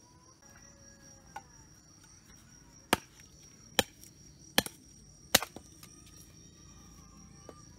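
Four sharp chops into firewood, evenly spaced a little under a second apart, splitting sticks for a campfire. A steady high trill of crickets runs underneath.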